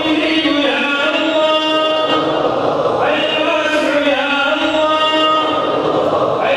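A man's voice chanting an Islamic supplication (dua) in long, drawn-out melodic phrases, a new phrase starting about every three and a half seconds.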